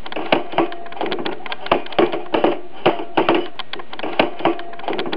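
Irregular sharp clicks and pops, several a second, over a steady background noise.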